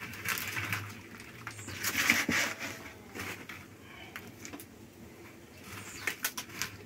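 Scattered rustling and light clicks, densest about two seconds in, over a faint steady low hum.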